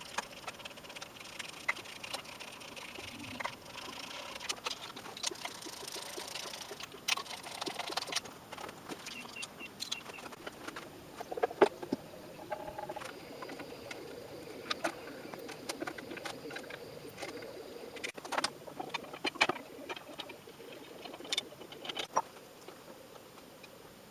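Irregular clicks and knocks of metal tools and engine parts being handled, scattered every second or so over a low background hiss.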